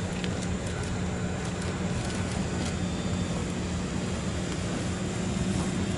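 Two parked electric trains, a 610 series and a 7700 series, humming steadily with their onboard equipment running, with a steady low tone throughout. A few faint clicks are scattered through it.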